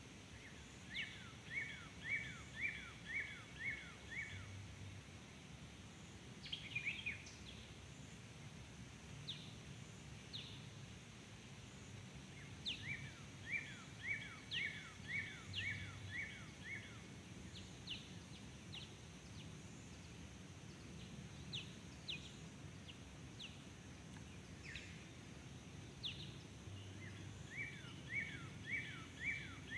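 A bird singing, faint, over a quiet outdoor background: a run of about seven quick down-slurred whistled notes, given three times, with scattered single chirps between the runs.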